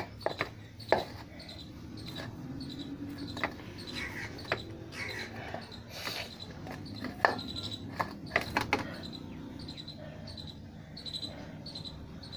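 Hands kneading flour dough in a steel plate, with sharp knocks now and then, the loudest about a second in and about seven seconds in. A short high chirp repeats about twice a second in the background.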